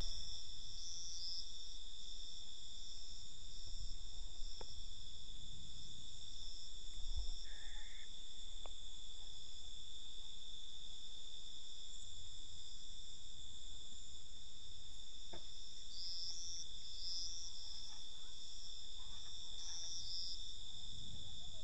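Night chorus of crickets: a steady, high-pitched trilling at several pitches at once, with a few short, louder calls standing out from it now and then.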